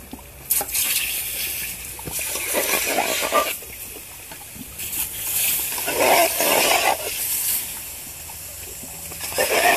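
Water poured in several splashes onto a steel wagon-wheel tire heated to about 1000 °F, hissing and sizzling into steam as it quenches the steel and shrinks it onto the wooden wheel.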